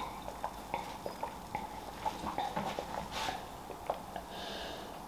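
A person gulping cola from a glass, heard up close: a string of soft wet swallowing clicks, a few a second, with a short breath a little after three seconds.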